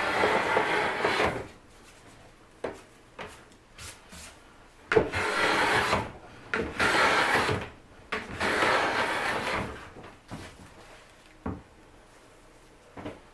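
First-generation Kanai sunpachi Japanese hand plane (kanna) shaving a spruce guitar soundboard: four planing strokes of about a second each, with short knocks in the pauses between them.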